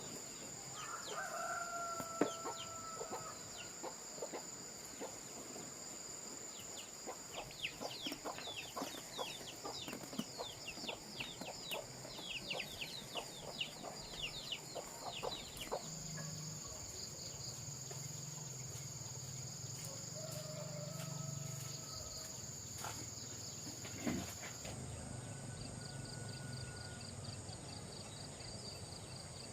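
A rooster crowing, with long held calls about a second in and again about two-thirds of the way through, over a steady high insect drone. In the middle there is a run of quick high chirps.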